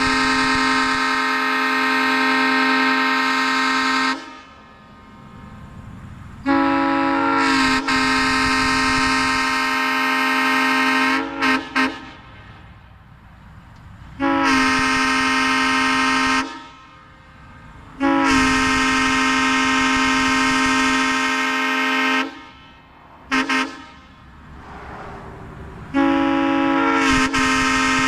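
Burnett Power Saws M3 three-chime locomotive air horn, fully restored with new diaphragms, blowing its chord cleanly in a series of long blasts of about two to four seconds each, with quick pairs of short toots between some of them.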